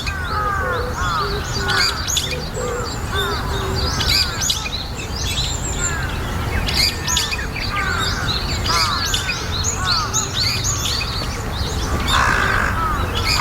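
Several wild birds calling at once: a busy mix of short, falling chirps and whistles, with a harsher, scratchy call near the end, over a steady low rumble.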